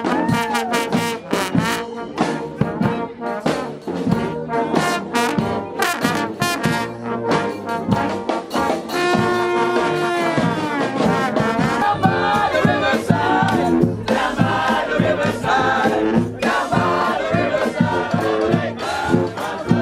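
Street brass band playing, with horns over a steady run of sharp percussion hits. About nine seconds in the horns hold one long chord, then the busy playing resumes.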